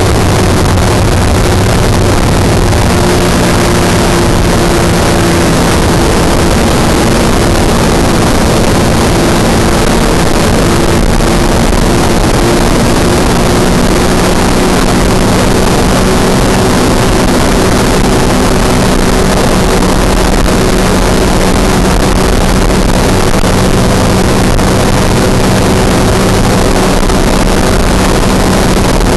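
An ultralight trike's engine droning at a steady cruise in flight, with strong wind rushing over the microphone in the open cockpit.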